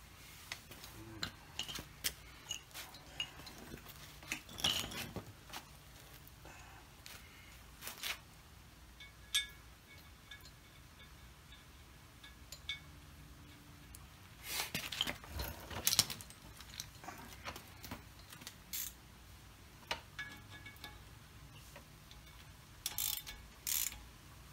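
Scattered metal clicks, taps and clinks, a few with a short ring, as a brake rotor and hub hardware are handled by hand, with a louder cluster of knocks about two-thirds of the way through and another near the end.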